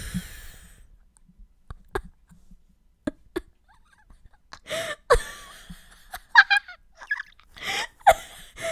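A few faint clicks, then a person laughing in short bursts from about five seconds in.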